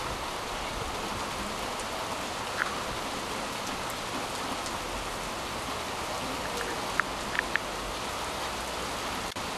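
Heavy downpour of rain, a steady dense hiss, with a few sharp drip ticks close by, a small cluster of them about seven seconds in.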